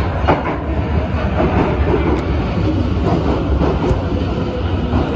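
Kawasaki & CRRC Sifang C151C metro train pulling into the platform and passing close by: a loud, steady rumble of wheels on rail, with the clack of wheels over rail joints.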